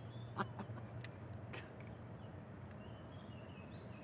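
Low steady hum of the boat's electric trolling motor, with a few light clicks in the first two seconds and faint bird chirps in the second half.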